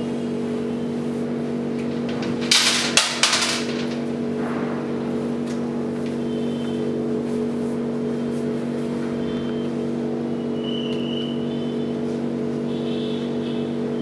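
A steady hum made of several held low tones, unchanging throughout. A short cluster of sharp knocks and clatter comes about two and a half to three and a half seconds in.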